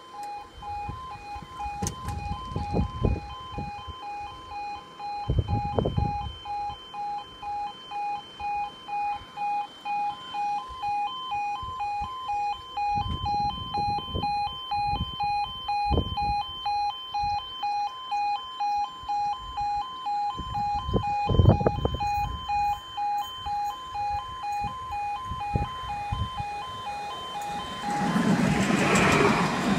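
Railway level crossing warning alarm sounding a steady, evenly pulsing electronic tone while the barriers are down, with a few low thumps underneath. Near the end the alarm stops and a tram running through the crossing builds into a loud rumble.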